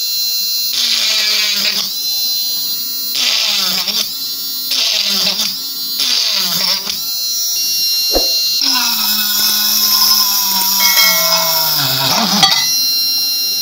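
Home-built mini drill, a small 6-volt DC motor with a brass collet chuck, running at a high whine. Its speed sags each time the fine bit bites: four short drillings into a copper-clad PCB, a click, then a longer drilling into a tin-can lid, where the motor slows and its pitch sinks under the load before it stops.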